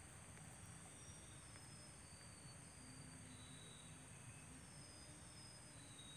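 Faint, steady high-pitched chirring of insects such as crickets, with a few short, faint high notes scattered through it.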